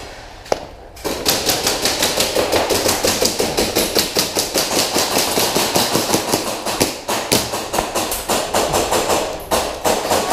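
Airsoft guns firing rapid full-auto bursts: a dense run of sharp clicks that starts about a second in and goes on with a few short breaks.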